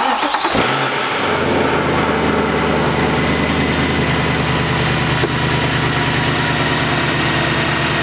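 Mercedes-AMG C63's 6.2-litre V8 starting with a sudden burst, then settling within about a second into a steady idle.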